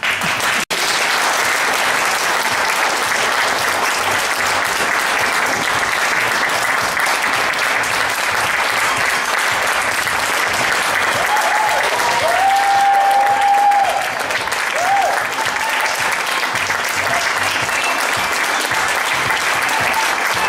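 Theatre audience applauding at the curtain call, breaking out all at once and holding steady, with a couple of brief whoops about halfway through.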